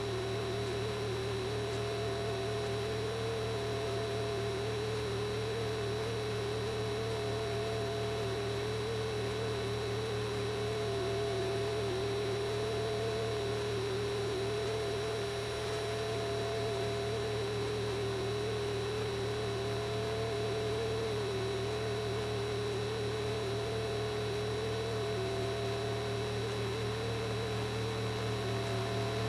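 A steady drone: a slightly wavering mid-pitched tone over a constant low hum and hiss, with a fainter higher tone that fades in and out every few seconds.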